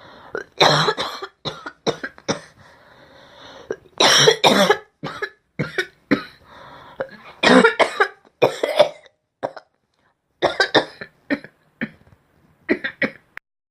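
A person coughing in repeated fits, each fit a quick run of several harsh coughs, with short pauses between the fits.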